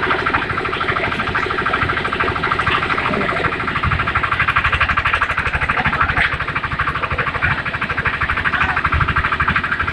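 Engine of a concrete mixer with lift running steadily, with a rapid, even pulse.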